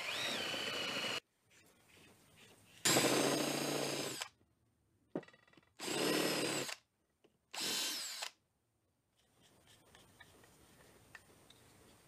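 Cordless drill drilling holes through a steel angle-iron plate and its plastic facing, in four short runs, the motor's whine rising in pitch as it spins up, with near silence between the runs. A few faint ticks near the end.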